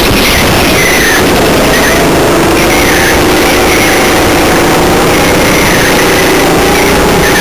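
Indoor rental kart's engine running hard, recorded up close from the kart itself, its pitch wavering a little through the corners. Short high squeals come every second or two as the tyres slide through the bends.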